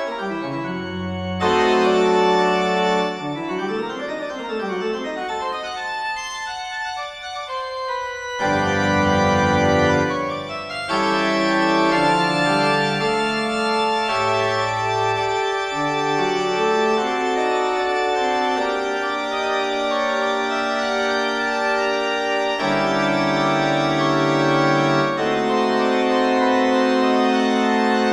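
Organ music of slow, sustained chords that change every few seconds, with long-held bass notes beneath.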